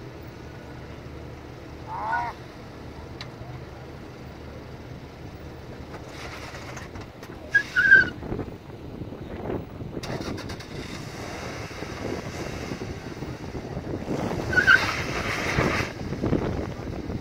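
Vehicle engine running under load as a small SUV climbs a slickrock ledge in two-wheel drive, rising in pitch and level in the second half. A few brief calls from people about 2 s in, 8 s in and near the end.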